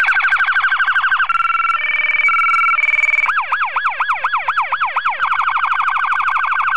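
Electronic siren cycling through its tones. It starts with a fast yelp, switches to a two-note hi-lo alternation about a second in, moves to slow rising-and-falling wails about three seconds in, and returns to a fast yelp near the end.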